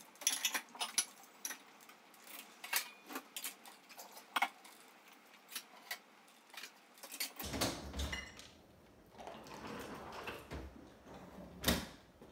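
Plates and cutlery clinking as a dishwasher is unloaded, a quick run of sharp separate clinks, then fuller rattling. Near the end comes one loud knock as the dishwasher door is shut.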